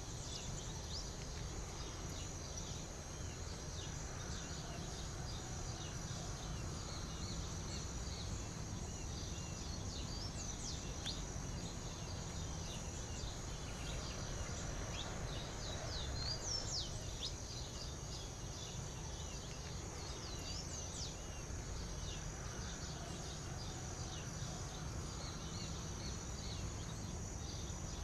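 Natural ambience: a steady high-pitched insect drone, with scattered short bird chirps over it that come thickest in a few clusters, and a constant low background rumble.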